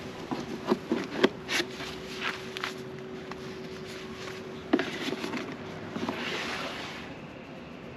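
Gloved hands handling the plastic under-seat storage compartment of a Honda SH 350 scooter: a quick series of clicks and knocks in the first few seconds, a sharper knock just before halfway, then rubbing and scraping of glove on plastic.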